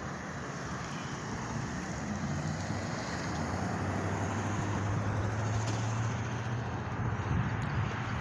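Passing road traffic with wind on the microphone; a vehicle's low engine hum swells in the middle and fades near the end.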